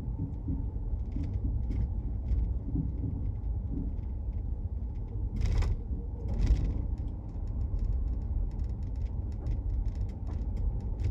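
Cab interior of a 2019 Ford F-150 SuperCrew rolling slowly over uneven ground: low road rumble with repeated light knocks and clicks, and about halfway through two heavier thuds a second apart. These thuds when the truck rocks side to side are what the owner suspects is a suspension problem.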